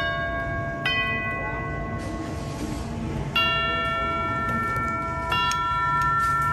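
Tubular chimes of a grandfather clock struck by the movement's hammers. There are four separate notes, the second under a second after the first, then gaps of about two and a half and two seconds, each ringing on long and overlapping the next. The owner thinks one hammer is sticking slightly.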